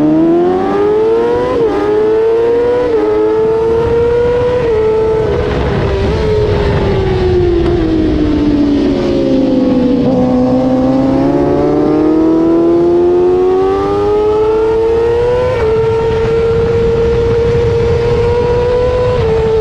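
600cc supersport racing motorcycle engine heard close to its exhaust silencer, at full throttle. Its pitch climbs through several quick upshifts in the first few seconds, falls steadily as the bike slows for a corner about halfway through, then climbs again, with a sudden step up near the end. Wind rush sits underneath.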